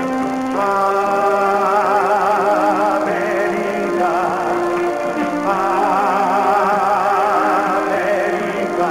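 A ballad sung by a man with orchestral backing: long held notes with vibrato, changing pitch every few seconds.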